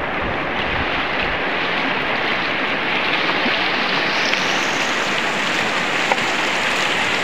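River rapids: fast white water rushing and churning over rocks, a steady close-up rush that grows a little brighter about halfway through.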